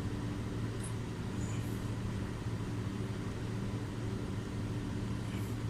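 Steady low background hum with a faint hiss and no clear event.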